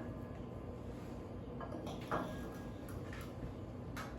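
A few faint taps and knocks of kitchen utensils and a mixing bowl being handled, with quiet room noise between them.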